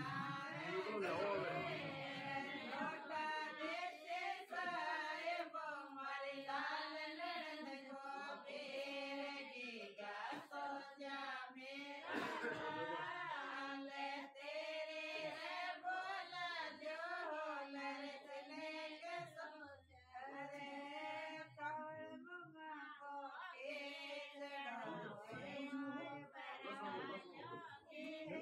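Several voices, women's among them, singing a traditional Rajasthani wedding ritual song together in long, wavering phrases, without instruments.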